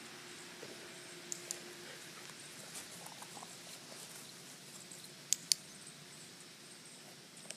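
Quiet outdoor ambience broken by two pairs of short, sharp, high-pitched clicks, each a quick double click; the pair about five seconds in is the loudest.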